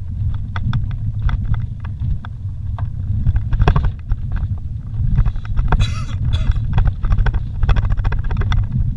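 Vehicle driving over a rough dirt road, heard from inside the cabin: a steady low rumble of engine and tyres with frequent sharp rattles and knocks from the bumps, busier in the second half.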